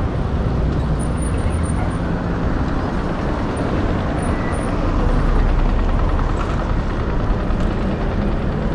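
Steady rush of wind and road noise on a camera carried along on a moving bicycle, with city traffic around it.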